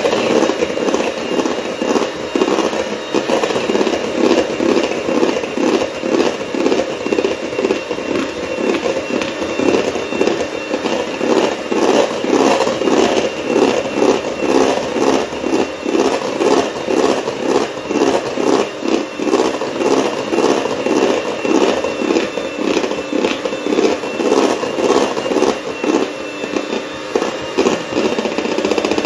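Handheld electric mixer running steadily, its beaters whipping cream in a stainless steel bowl, with a faint high motor whine. The sound pulses regularly a few times a second as the beaters are swept around the bowl.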